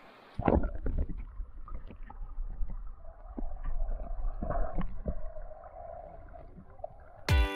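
Muffled underwater sound of river water, heard through a submerged camera: a low rumble with scattered knocks and bumps. Guitar music starts just before the end.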